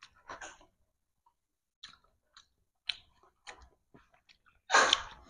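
People chewing sweet martabak and fried snacks close to the microphone: scattered wet mouth clicks and smacks, with one louder noisy burst near the end.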